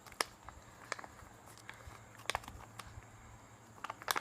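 Handling noise of plastic instant-noodle topping packets: a few sharp, separate crinkles and clicks, with a quick cluster of them near the end.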